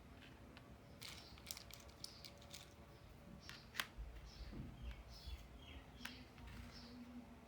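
Faint scattered clicks and taps of small plastic toy pieces being handled, with one sharper click about four seconds in.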